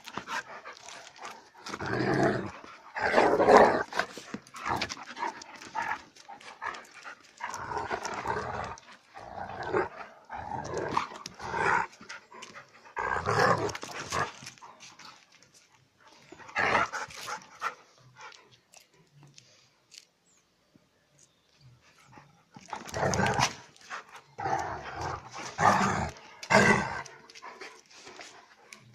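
A German Shepherd and a smaller dog play-fighting, growling and barking in irregular bursts. A lull of a few seconds falls just past the middle, then the growling and barking pick up again.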